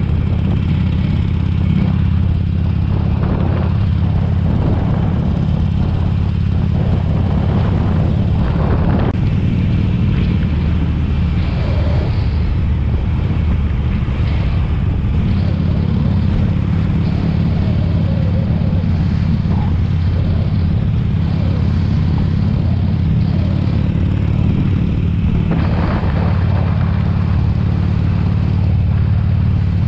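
2007 Harley-Davidson Sportster 883 Custom's air-cooled V-twin engine running steadily at cruising speed, heard from a helmet chin mount.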